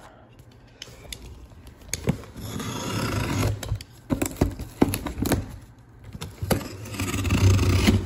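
Cardboard scraping and rustling as a hand rummages down inside a shipping box, with scattered knocks and clicks; two longer stretches of scraping, about three seconds in and near the end, with the box rubbing right against the microphone.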